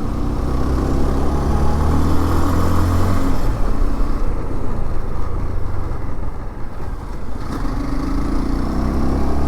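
Dafra NH190 motorcycle's single-cylinder engine running while riding, with road and wind noise. The engine note eases off about three seconds in and picks up again near the end.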